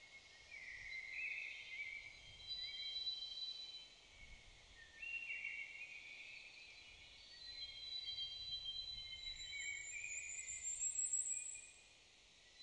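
Woodland birdsong: several birds singing at once in overlapping high whistled phrases, with a higher buzzy trill near the end.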